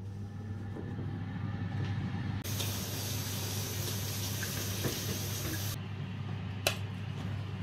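A steady low hum with a bright, even hiss that starts abruptly a few seconds in and cuts off about three seconds later, then a single sharp click near the end.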